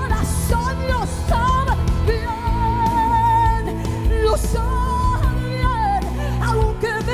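A woman singing a Spanish-language worship song into a microphone over instrumental accompaniment, holding one long note about two seconds in.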